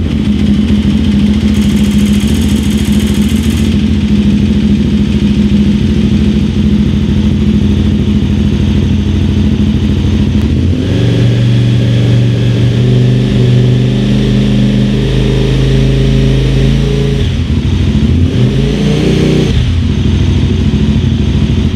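KTM 990 Supermoto's V-twin engine, fitted with an Akrapovič exhaust, running on the stand. It idles steadily for the first half, then runs at a slightly raised speed, and near the end the revs swing up and back down as the throttle is worked.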